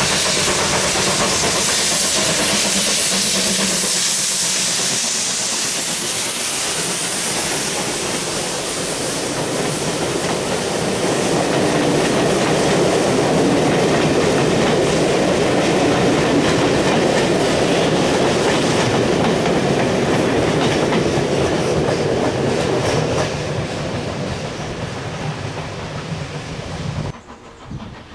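A steam locomotive passes close by with a strong hiss of steam. It is followed by a train of mail vans rolling past, their wheels clattering over the rail joints. The sound fades as the train draws away, then cuts off abruptly near the end.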